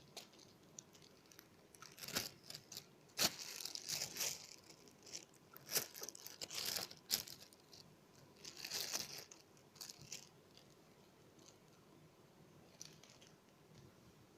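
Irregular crinkling and crunching handling noise in bursts, busiest in the middle and dying away near the end.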